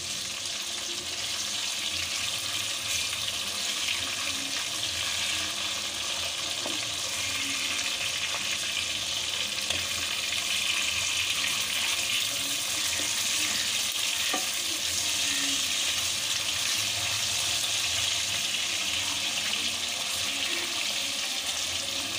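Hilsa fish steaks sizzling in hot mustard oil in a wok, a steady crackling hiss, with a few light taps of the spatula as the pieces are turned.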